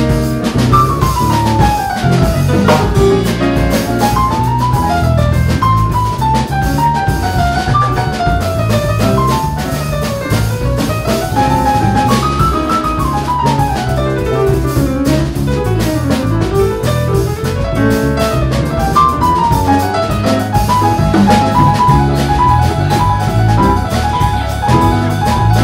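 Live jazz trio of piano, electric bass and drum kit playing an up-tempo number. The piano plays quick single-note runs rising and falling over walking bass and drums, settling near the end into a repeated note figure.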